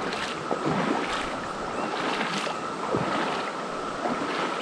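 Shallow rocky creek water rippling, with a few brief splashes, over a steady, even drone from a chorus of Brood X 17-year periodical cicadas.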